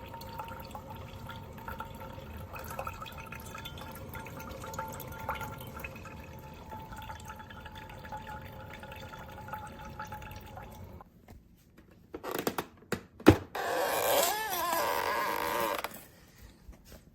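Single-serve drip coffee maker brewing, hot water dripping and trickling steadily through the coffee basket; this stops about eleven seconds in. A few sharp clicks follow, then a louder rushing, liquid-like sound for about two seconds near the end.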